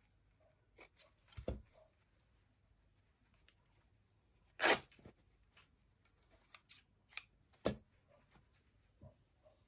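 Fabric scissors snipping cotton fabric, then the fabric being handled and laid on a blanket: scattered rustles and small knocks, the loudest a sharp one a little under halfway through.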